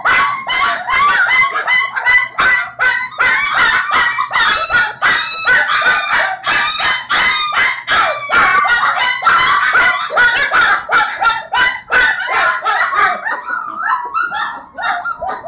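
A litter of young puppies yelping and crying all at once, a dense, loud chorus of overlapping high-pitched cries. The chorus thins out and gets a little quieter about thirteen seconds in.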